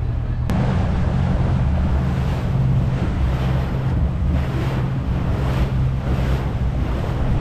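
Motorboat under way: a steady engine drone with wind buffeting the microphone and water rushing past the hull.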